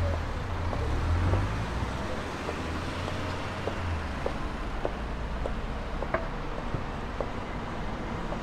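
Street traffic noise with a vehicle's low engine rumble, close for the first half and fading out about four seconds in, over light regular footsteps.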